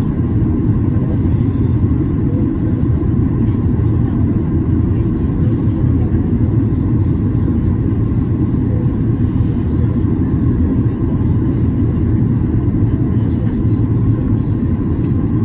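Steady low rumble of airflow and the CFM56 jet engines inside the passenger cabin of a Boeing 737-800 on its approach.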